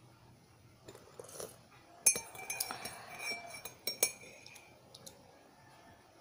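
A metal spoon clinking against a ceramic mug. A sharp clink about two seconds in rings on briefly, with lighter taps a second in and around four seconds in.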